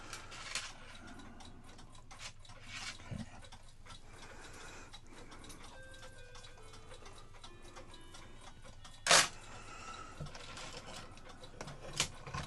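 Light metallic clicks and ticks from handling a cuckoo clock's movement and chains, with a sharper click about nine seconds in and another near the end.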